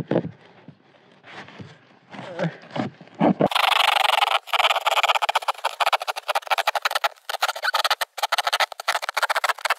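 A knife sawing through a cardboard box, a series of short scraping strokes. About three and a half seconds in it turns into a loud, fast, continuous rasping with a thin sound.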